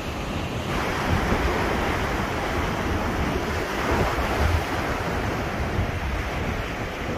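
Wind buffeting the microphone in gusts over the steady wash of waves at the shore, the hiss of the water swelling about a second in.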